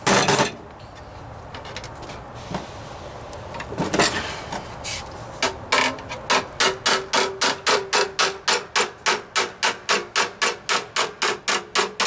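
Hammer striking a block against a steel floor-pan patch held in a vise, tapping in a stiffening bead. A couple of single blows come first, then from about five seconds in a steady run of about three blows a second, each with a short metallic ring.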